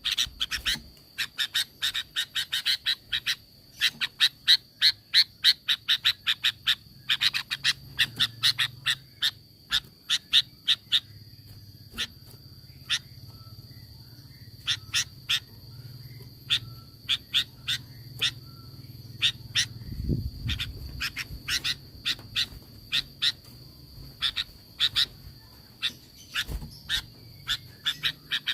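Sooty-headed bulbul (kutilang) calling in quick runs of short, sharp chattering notes, several a second, with a quieter spell in the middle. A steady high-pitched tone runs underneath.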